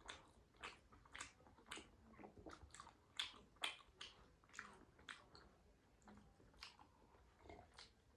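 Faint mouth sounds of someone chewing momo dumplings, with short wet smacks and clicks coming about twice a second.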